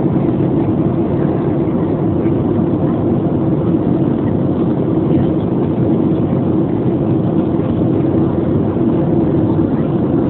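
Steady cabin noise of a Southwest Airlines Boeing 737 in flight: an even rush of airflow and engine drone with a constant hum, unchanging throughout.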